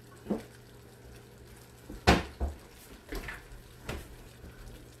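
A few short knocks and clinks of glassware and kitchenware being handled, the loudest about two seconds in, over a faint steady hum.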